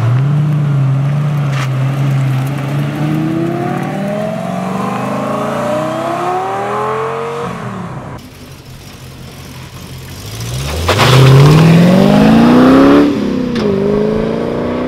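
Lamborghini Gallardo Spyder's V10 pulling away: a steady low engine note, then climbing in pitch as it accelerates off, fading by about eight seconds. After an abrupt break, another sports car's engine accelerates away, rising steeply in pitch and louder still, dipping briefly near the end before climbing again.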